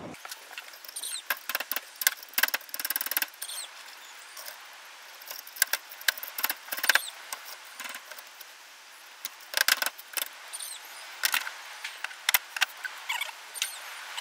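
Claw hammer tapping on a strip of perforated metal strapping held in a bench vice, with metallic clinks and rattles as the strip is bent and handled. The taps come in irregular clusters of sharp clicks, the loudest few a few seconds apart.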